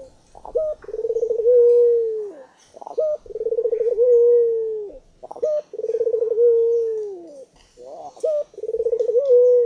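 A dove cooing: four long, rolling coos, each opened by a short sharp note and falling in pitch as it ends, about every two and a half seconds.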